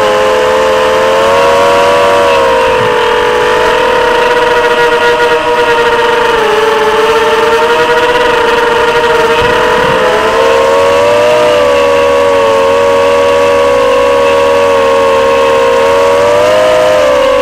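Electric motors and propellers of an FPV drone whining steadily in flight, picked up by its onboard camera, the pitch wavering gently up and down with throttle.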